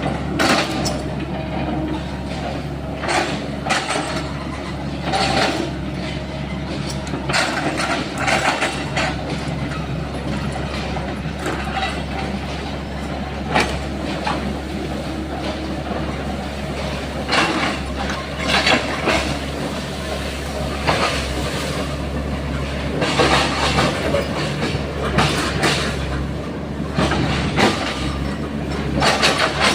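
Sany SY135F excavator engine running steadily under load, with frequent irregular knocks and cracks from the machine working.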